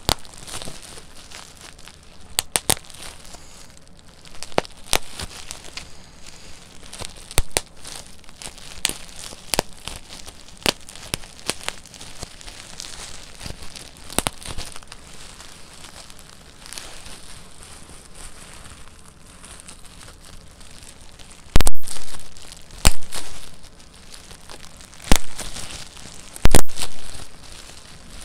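Plastic bubble wrap being popped between the fingers: irregular sharp pops every second or so over the crinkling of the plastic sheet, with the loudest pops bunched in the last several seconds.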